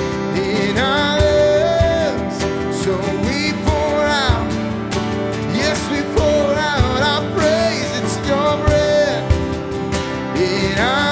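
Worship band music: singing over guitar and drums.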